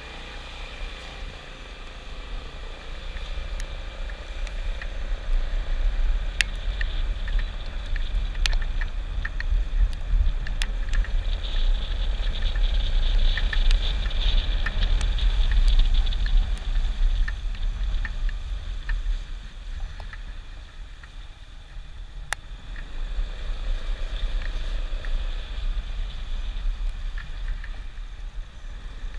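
Yamaha XMAX 300 scooter riding on a wet road: a low rumble of wind on the microphone, with tyre and engine noise. It builds as the scooter pulls away, eases off about twenty seconds in, then rises again. A few sharp ticks are scattered through it.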